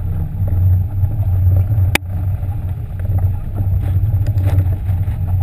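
Sportfishing boat's engines running steadily with a loud low drone. One sharp click about two seconds in.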